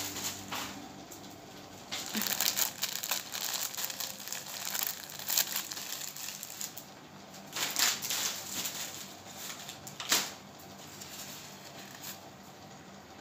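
Packaging crinkling and rustling as it is handled, in irregular bursts with a few sharper crackles, the loudest about ten seconds in.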